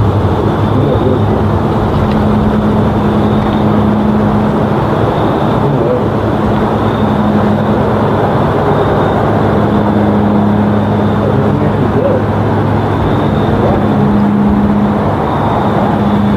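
Three-bladed Piper PA-34-200T Seneca twin-engine propeller aircraft droning overhead, a steady hum that swells and fades every few seconds. That slow beat is typical of two engines turning at slightly different speeds.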